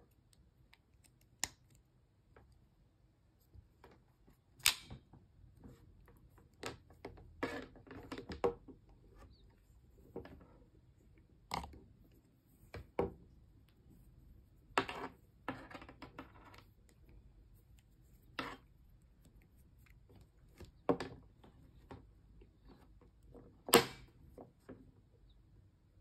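Handling noise from a plastic USB-C power adapter and its cable on a wooden tabletop: irregular clicks and taps as the connector is plugged in and the adapter is handled and set down, the sharpest knocks about five seconds in and near the end.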